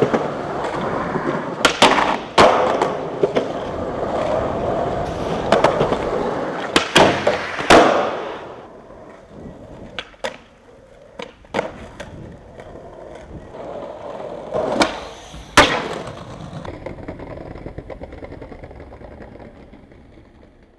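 Skateboard wheels rolling over concrete, broken by a dozen or so sharp cracks of tails popping and boards landing during tricks. The rolling is loudest for the first eight seconds, then quieter, and fades out near the end.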